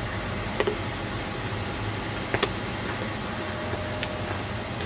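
Steady outdoor background hiss with a few faint short knocks, two of them close together about halfway through.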